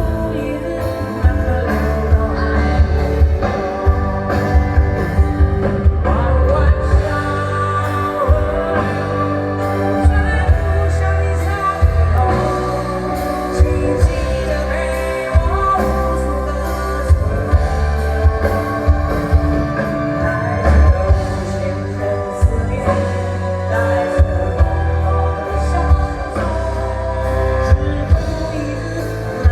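Live band music amplified over a sound system: heavy bass, regular drum hits and a sung melody.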